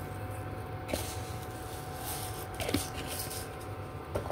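Black sesame seeds shaken from a jar onto batter in a glass bowl, a faint scattered patter with a few light clicks, over the steady hum and whine of a switched-on induction cooker.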